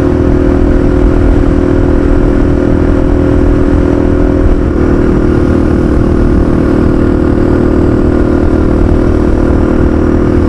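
Honda XLX 250R's single-cylinder four-stroke engine running steadily at cruising speed under way, with wind rumbling on the microphone. About halfway through, the engine note steps up slightly.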